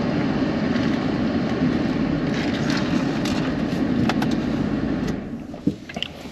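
Steady road and engine noise heard from inside a moving pickup truck's cab, which falls away about five seconds in as the truck slows, with a few light clicks near the end.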